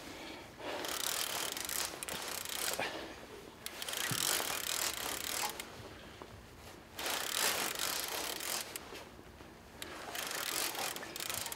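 Multiplier reel's drag buzzing as a big fish pulls line off against it, in several surges of a second or two with short pauses between.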